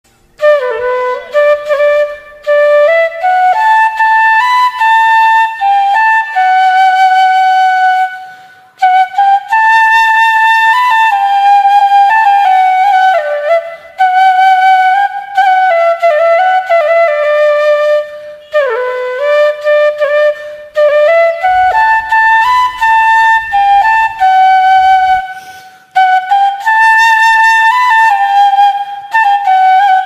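Background music: a solo flute playing a slow melody in long phrases, with notes sliding into one another. The phrases are broken by brief pauses.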